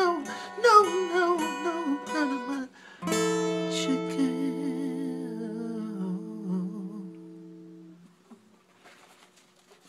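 A man sings with a strummed acoustic guitar. About three seconds in he strikes a chord and draws out a long, falling vocal line over it, and the chord rings and fades away by about eight seconds.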